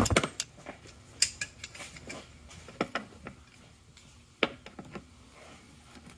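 Scattered sharp metallic clicks and clinks of hand tools and small steel parts against a Turbo 350 transmission case as a servo is worked loose, several light knocks spread irregularly.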